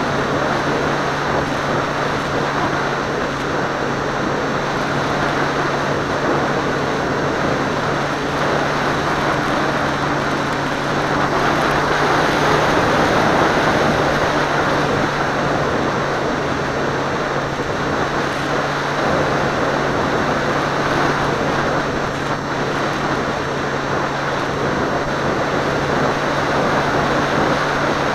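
Seawind seaplane in flight, heard from a camera on board: a steady propeller hum under heavy wind rush over the microphone, swelling slightly about halfway through.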